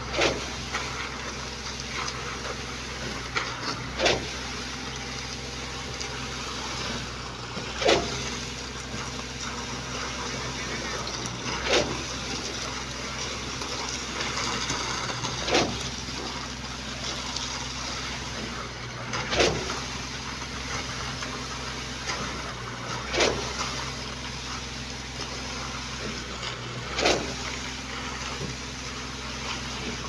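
Concrete pump's engine running steadily, with a sharp knock about every four seconds, eight in all, as the pump strokes and pushes each surge of concrete through the delivery hose.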